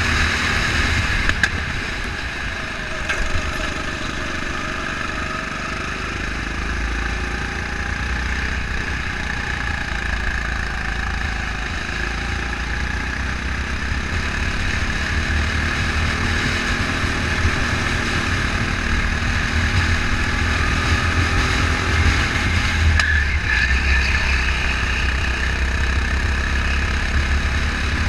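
Onboard sound of a go-kart lapping a track: its small engine runs continuously, the pitch rising and falling with throttle, over a steady rush of wind and vibration rumble on the kart-mounted camera's microphone.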